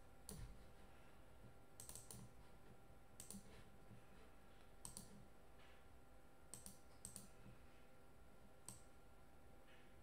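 Faint, scattered clicks, about nine in all, some in quick pairs, over near-silent room tone.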